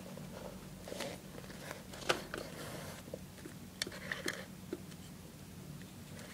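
Faint, scattered clicks and light taps of small toys being handled: a toy figure and a miniature wooden cart loaded with tiny boxes moved across a wooden tabletop, over a low steady hum.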